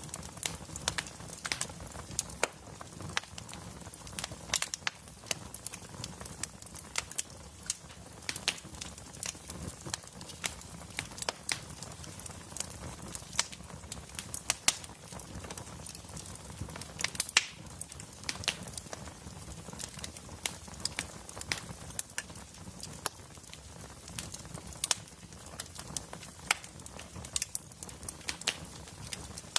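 Wood fire crackling in a fireplace: irregular sharp pops and snaps, several a second, over a steady low rumble of burning logs.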